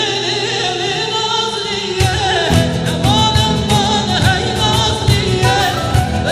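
A Kurdish folk song: a singer's wavering, ornamented melody over instrumental accompaniment, the beat dropping out briefly and coming back in about two seconds in.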